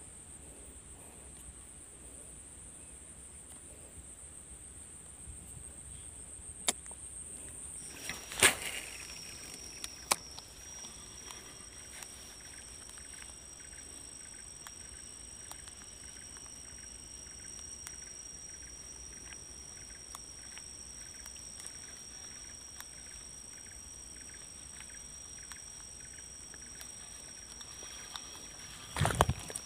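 Insects singing in steady high-pitched drones, a second, lower drone joining about eight seconds in. A few faint clicks and one sharper knock come near that point, and light regular ticking runs through the second half.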